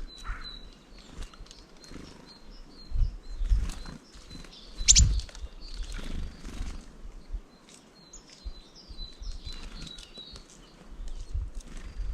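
Small birds at a feeder calling with short, high chirps again and again, with scattered taps and one sharper tap about five seconds in, over gusts of low rumble.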